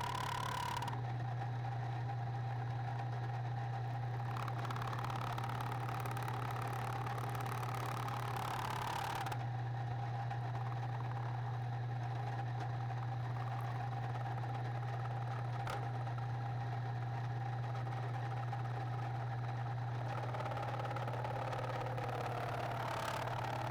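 Milling machine running steadily with a constant low hum and a steady whine. A brighter hiss rises over it briefly at the start and again for about a second around nine seconds in.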